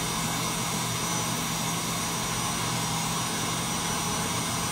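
KitchenAid Artisan stand mixer running steadily at speed, its wire whisk beating a thin batter of eggs, sugar, yogurt and oil into a pale foam in a glass bowl. A constant motor hum and whir with no change in speed.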